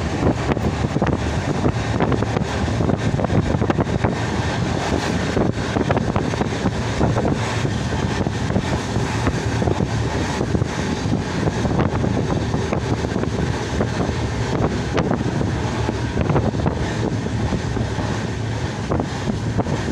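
Passenger train running at speed, heard at an open window of a sleeper coach: a steady, loud noise of the coach on the track, with wind blowing on the microphone.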